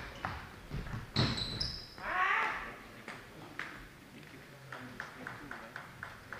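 A table tennis ball bounced over and over, light clicks about four to five a second from a little past the middle, as a player readies to serve. Earlier come a sneaker squeak on the hall floor and a short voice.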